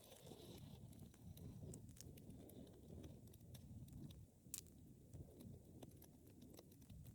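Wood fire burning quietly in a fireplace: a faint low rumble of flames with scattered small crackles, and one sharper pop about four and a half seconds in.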